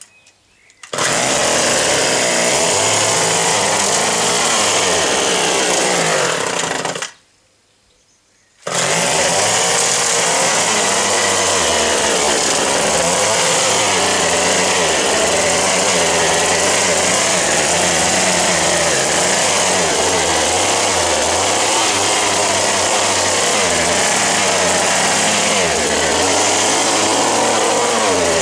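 1958 Little Wonder hedge trimmer's O&R 1 hp two-stroke engine running steadily as the trimmer cuts. It comes in about a second in, stops about seven seconds in, and runs again a second and a half later.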